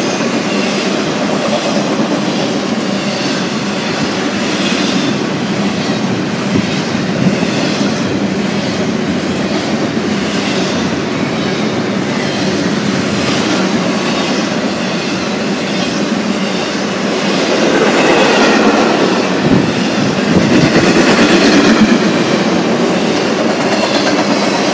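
Intermodal freight train cars, trailers on flatcars and double-stack containers, rolling past close by: a steady rumble and clatter of steel wheels on the rails, growing louder about two-thirds of the way through.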